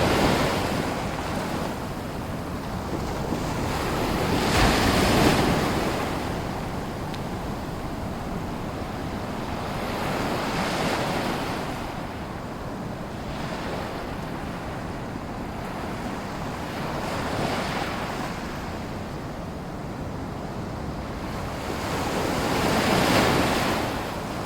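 Small waves washing ashore in a sea lagoon: a steady wash of water with a swell breaking about every six seconds, the loudest about five seconds in.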